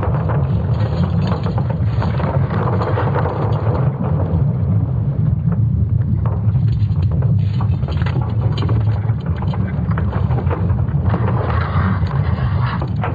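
Sonified Earth's magnetic field signals: a steady deep rumble with a crackling, rushing noise over it, which grows brighter about eleven seconds in.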